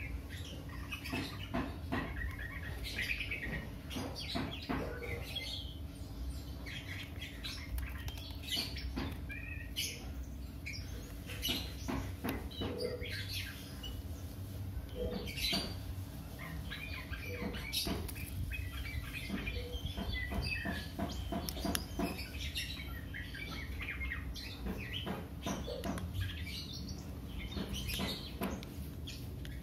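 Small birds chirping on and off, among frequent small clicks and rattles from a plastic emergency-lamp casing being handled and its battery cover worked, over a steady low hum.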